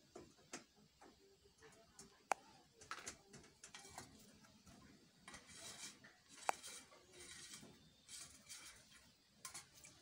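Indian ringneck parrot bathing at a steel water bowl: faint splashing and wing-fluttering in spells, mostly in the second half, with two sharp metallic clinks, one about two seconds in and one about six seconds in.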